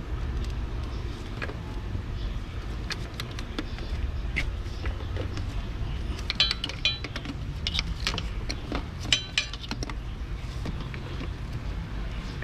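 A metal hand tool clicking and clinking against a tight spin-on oil filter as it is worked loose: scattered sharp clicks, with a cluster of ringing metallic clinks about halfway through, over a steady low hum.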